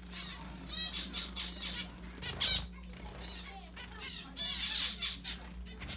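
A fledgling finch begging for food: several bursts of rapid, high, repeated chirps, loudest about two and a half seconds in.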